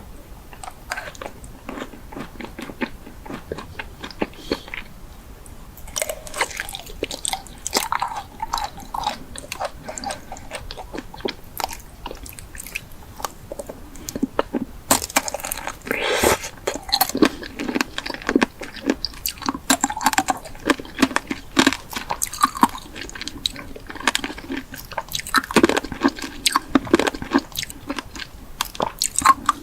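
Close-up biting and chewing of crunchy food, a steady run of irregular crunches, getting busier and louder about halfway through.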